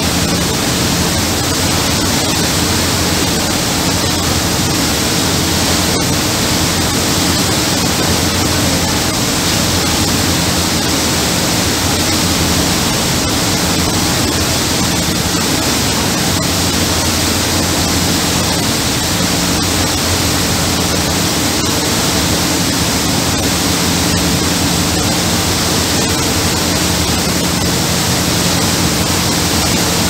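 Steady, loud rushing of a fast passenger boat's churning wake and the wind at its stern, with a low engine drone underneath.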